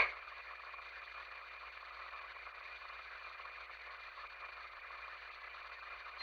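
Police radio scanner idling between transmissions: a faint, steady hiss with the narrow, tinny band of radio audio. It opens with a brief click as the previous transmission cuts off.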